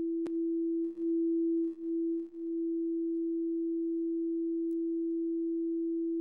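A steady, pure sine-wave tone from the Unilateral Phase Detractor's Pure Data oscillators, the same audio that draws the shape on the oscilloscope. It breaks briefly with a soft click four times in the first two and a half seconds as the oscillator phases are changed, then holds steady.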